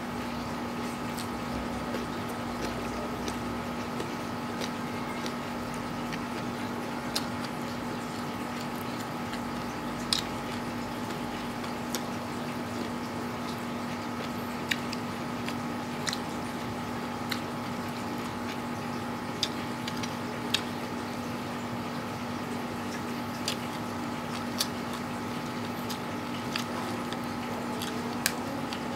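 Mouth sounds of eating: wet chewing and slurping of instant noodles and raw papaya leaves, with scattered sharp clicks, over a steady background hum.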